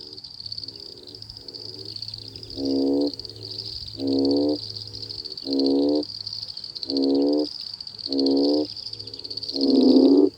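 Breeding chorus of frogs after summer rain. One loud frog gives a pitched call about once a second, each call under a second long, with fainter calls from other frogs in between, over a steady high trill.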